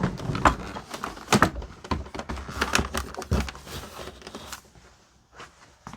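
Plastic housing parts of a Kenmore Elite vacuum being handled and pried apart: a quick run of clicks and knocks for about four and a half seconds, then only faint handling.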